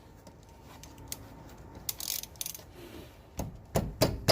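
Ratchet wrench clicking on a brake caliper bolt: faint scattered clicks at first, then loud sharp clicks about three a second near the end.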